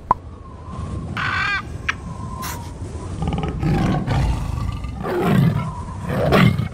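Sound effects of a tiger roaring, several rough roars with the loudest near the end, preceded about a second in by a short bird's call.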